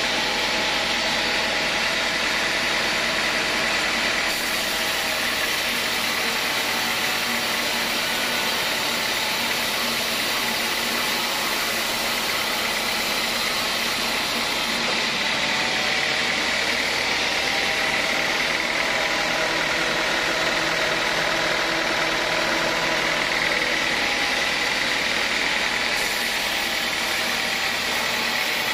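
Band sawmill running steadily, its blade sawing lengthwise through a squared acacia hardwood beam: a continuous machine hum mixed with the hiss of the cut.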